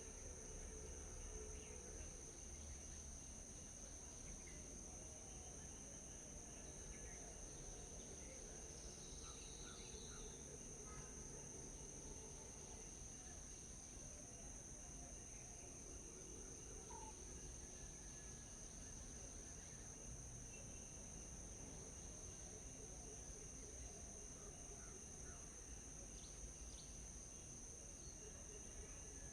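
Faint, steady high-pitched drone of insects, with a few short, faint bird chirps scattered through it.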